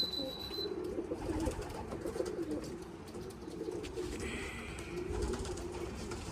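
Racing pigeons cooing, low wavering coos repeating one after another.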